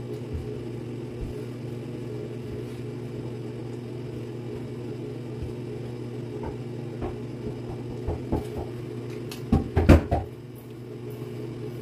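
A steady low hum, with a few faint clicks scattered through it. A short cluster of louder clicks and knocks comes about ten seconds in.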